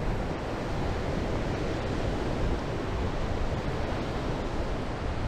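Steady rush of ocean surf breaking on a sand beach, with wind buffeting the microphone.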